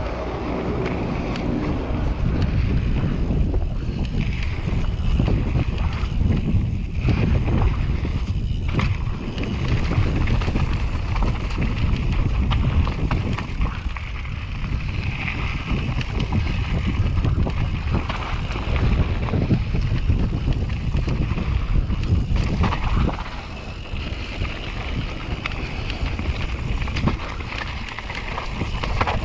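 YT Capra enduro mountain bike descending a dirt and gravel trail: knobby tyres rolling over loose stones, the bike rattling over bumps, and wind buffeting the microphone.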